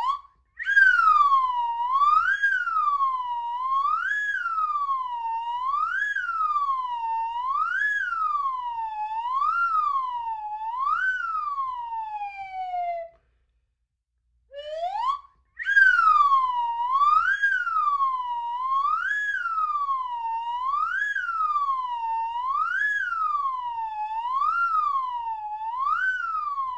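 Slide whistle played in two phrases, each opening with a quick upward slide, then a pitch swinging up and down about once every two seconds, seven times, and ending in a long downward slide. The two phrases are separated by a silence of about a second and a half, about halfway through.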